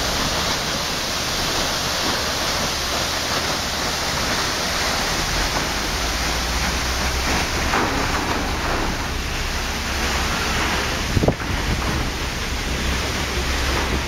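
Steady rushing hiss of a tall waterfall, falling water and spray, with a brief knock about eleven seconds in.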